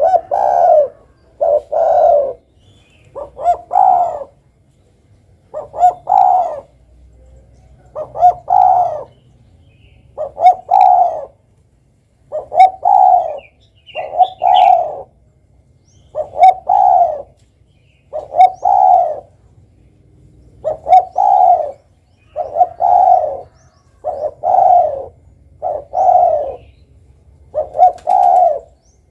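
Spotted dove (derkuku/tekukur) cooing over and over in short repeated phrases, each a quick lead-in note followed by a longer coo, a phrase about every two seconds.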